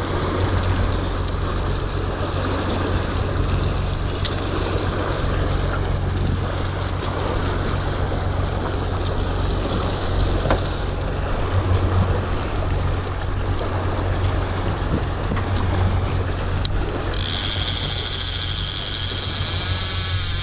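A boat's motor runs steadily at trolling speed, with a constant low hum and water rushing past the hull. About three seconds before the end, a sharp high-pitched buzz cuts in.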